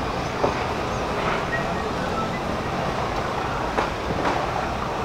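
Steady low engine rumble with a continuous hiss of outdoor noise. A few faint short chirps and a couple of brief clicks sound over it.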